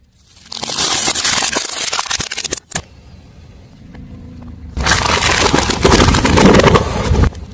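Car tyre rolling over and crushing crunchy objects: two long stretches of crackling and crunching, the first starting about half a second in, the second about five seconds in.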